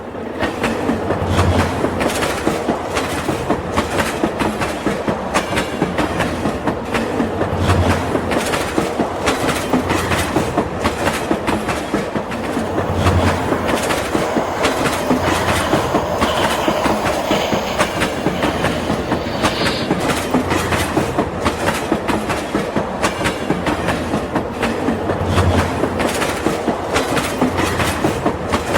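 Toy train running along its track with a steady, rapid clickety-clack, starting abruptly.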